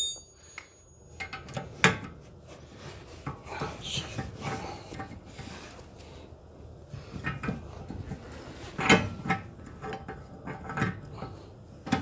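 Steel socket and bar clinking and knocking against a car's rear wheel-hub spindle nut as the 36 mm socket is worked to unscrew the already-loosened nut: scattered, irregular metal clicks, a few of them sharper knocks.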